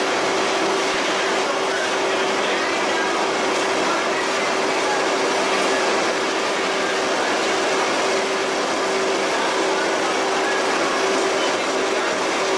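Steady machinery noise of a crab processing line, with conveyors running: an even roar with a constant hum and no distinct events.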